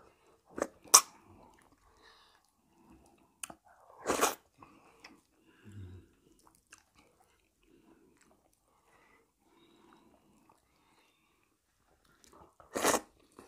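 People eating fufu with seafood okra soup: quiet chewing broken by a few sharp mouth smacks and clicks, the loudest about four seconds in and near the end.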